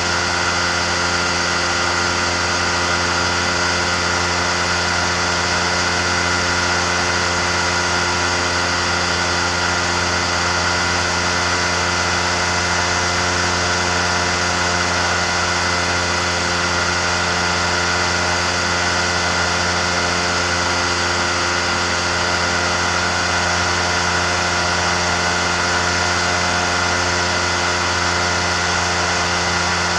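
Amphibious microlight trike's rear-mounted pusher engine and propeller running steadily in level flight, a constant drone that does not change pitch.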